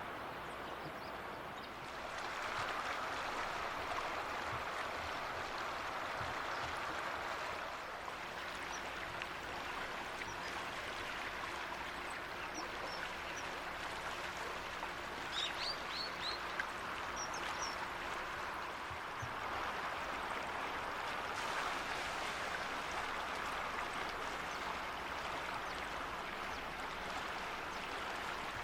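Steady rush of flowing stream water, with a few short, high bird chirps about halfway through.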